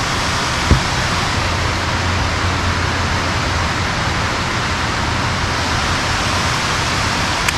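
A steady rushing hiss, with one dull knock just under a second in.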